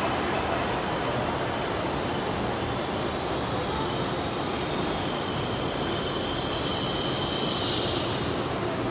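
N700S Shinkansen train rolling slowly into the platform, with a steady rush of running noise. Over it is a high-pitched whine that sinks slightly in pitch and stops about eight seconds in as the train comes to a halt.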